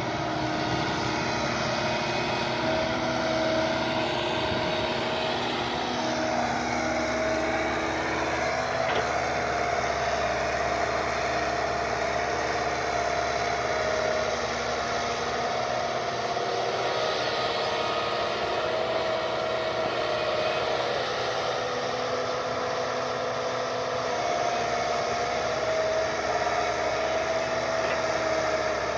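Kobelco SK120 Mark 3 excavator's diesel engine running steadily as it digs and loads soil, its tone shifting only slightly.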